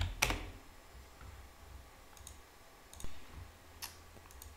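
About half a dozen separate computer keyboard keystrokes, the loudest just after the start, the rest scattered sparsely through the next few seconds.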